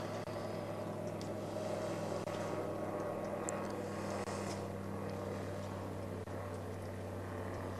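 Small Cessna propeller plane flying by, a steady engine drone that slowly fades toward the end.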